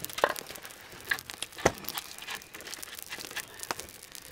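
Irregular light clicks and crinkling rustles from things being handled, with one sharper knock a little over a second and a half in.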